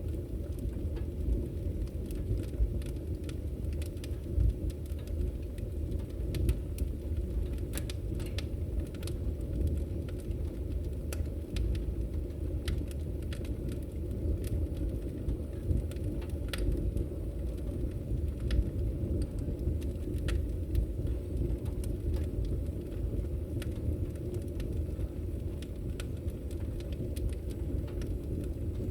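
Wood fire burning in a fireplace: a steady low rush with scattered, irregular sharp crackles and pops.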